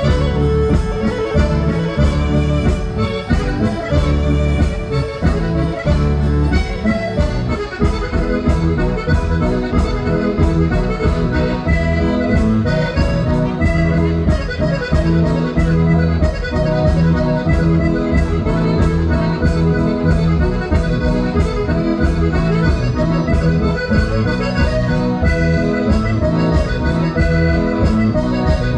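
Sardinian ballittu dance music, instrumental, with the accordion leading over a steady fast beat.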